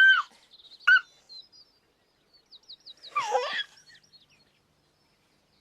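Birds chirping in short high calls and trills, with two louder whistled calls in the first second and a rougher, louder call with falling pitch about three seconds in.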